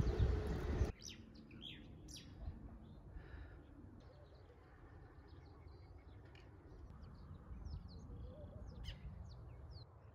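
Several small birds chirping in short, scattered high calls over a faint low background hum. The first second holds a louder low rumble of street noise that cuts off abruptly.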